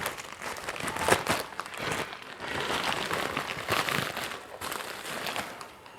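A delivery packet being opened by hand: its packaging crinkling and rustling, with scattered small clicks.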